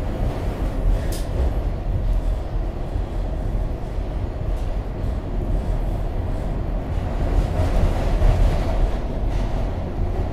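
SEPTA Market-Frankford Line M-4 subway car running along the track, heard from inside the car: a steady low rumble of wheels and running gear, with a brief sharp click about a second in.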